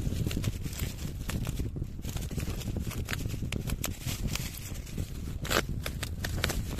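Plastic packaging and tape being peeled and torn off a parcel by hand: scattered crackles and clicks, with a louder crackle about five and a half seconds in, over a constant low rumble.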